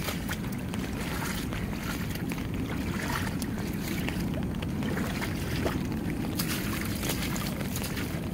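Wind buffeting the microphone as a steady low rumble, with scattered small clicks and taps over it.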